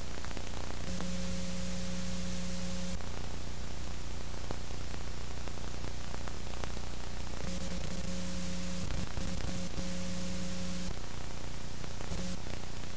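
Steady static hiss with a low electrical hum, and a buzzing tone that switches on and off several times, the longest stretch about halfway through.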